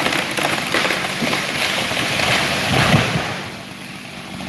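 Rushing crash of a felled tree coming down through branches, peaking in a heavy thud about three seconds in, with a chainsaw idling underneath.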